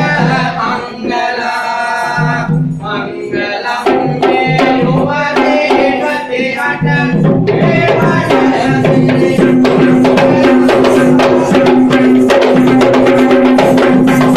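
Traditional Sri Lankan drumming for Kandyan dance: hand drums over a steady held tone, growing denser and louder about halfway through.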